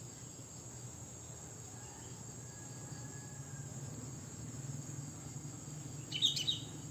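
Sooty-headed bulbul giving a short, loud burst of chirping notes about six seconds in, with a faint thin whistle around the middle. Under it runs a steady high-pitched insect-like drone and a low hum.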